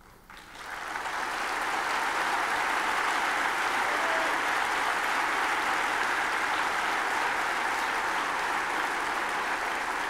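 A large theatre audience applauding. The clapping starts about half a second in, swells over the next second or so, then holds steady.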